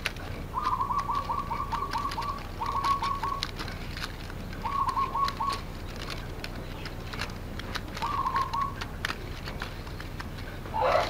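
A bird's rapid trill, a quick run of short notes at one pitch, repeated four times with gaps between, over light clicking and rustling of thin green bamboo strips being woven by hand; a short, louder call comes near the end.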